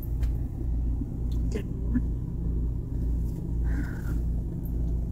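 Low, steady rumbling hum that pulses slightly, with a few faint clicks over it.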